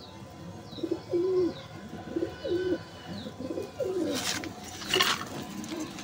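Domestic pigeons cooing: several rising-and-falling coos one after another, with faint high chirps over them. Two short rustling noises come near the end.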